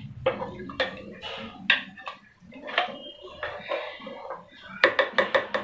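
Wooden spoon stirring rice and water in an aluminium pressure cooker, knocking against the pot's sides. The knocks are scattered at first, then come in a quick run of five or six near the end.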